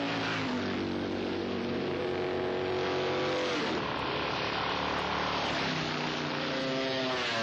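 Vintage racing motorcycle engine running hard at high revs. Its pitch drops sharply about three and a half seconds in, then climbs again, with another change in pitch near the end.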